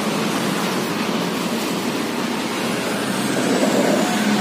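Steady road and traffic noise from a vehicle on the move, swelling slightly a little after three seconds in.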